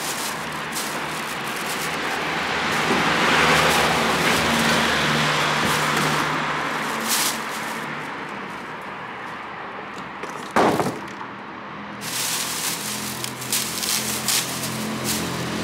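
Road traffic passing on the street, swelling and fading. A single sharp knock comes about ten and a half seconds in. Near the end there are short crackles as the scooter's plastic wrap and straps are handled.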